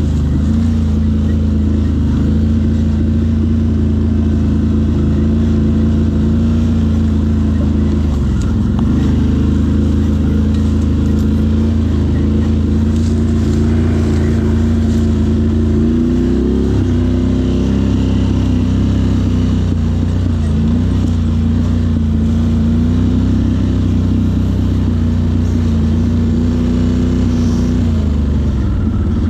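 Off-road quad or side-by-side engine running steadily under way, its pitch dipping and rising a few times as the throttle is eased and opened again.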